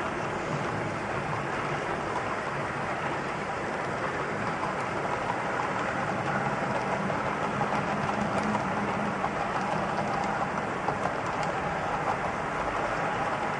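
HO-scale model freight train's boxcars rolling past on a curved track: a steady rushing rumble of the wheels running on the rails.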